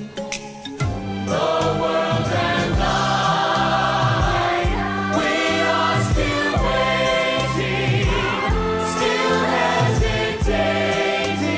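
Choir singing a musical-theatre number over a band with bass and drums, thin for the first second and then full.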